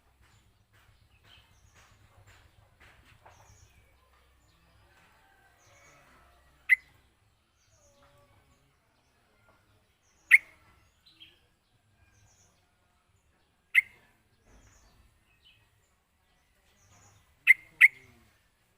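Yellow-vented bulbul (trucukan) calling. Faint chirps are scattered throughout, and five short, loud, sharp calls stand out: one each at about seven, ten and fourteen seconds in, then two in quick succession near the end.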